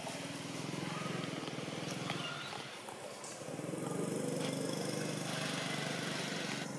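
A small motor engine running steadily with an even pulsing hum. It dips briefly about two and a half seconds in, then comes back louder.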